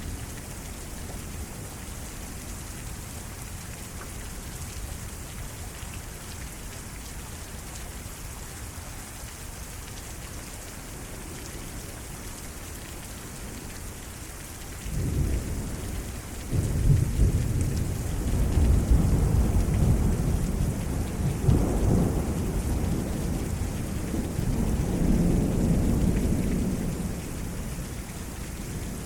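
Heavy rain falling steadily in a derecho thunderstorm. About halfway through, thunder rolls in: a low rumble that swells in several loud peaks for around twelve seconds, then eases off near the end.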